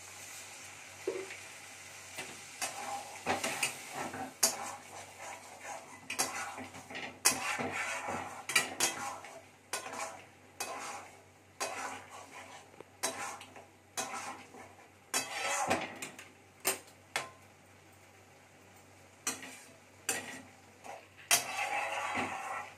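Metal spatula stirring a wet dal mixture in a steel kadai: irregular scrapes and clinks of metal on the pan, with a sizzle from the hot pan between strokes. The stirring pauses briefly about two-thirds of the way through.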